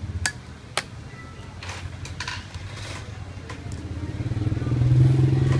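Laptop keyboard keys clicking and rubbing under hands pressed across a newly fitted Dell Inspiron 15 5547 keyboard to seat it. From about four seconds in, an engine's steady low hum grows louder and becomes the loudest sound.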